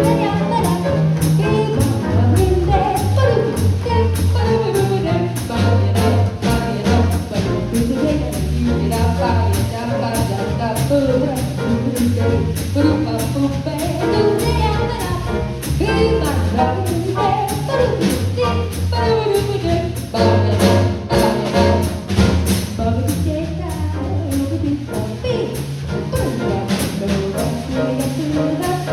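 Small jazz band playing an instrumental passage: a bass line walking in even steps under a melody line, with a steady swing beat from the drums.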